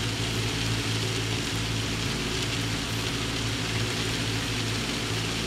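Heavy rain pelting down on a boat, a dense steady hiss, over the steady drone of the boat's engine.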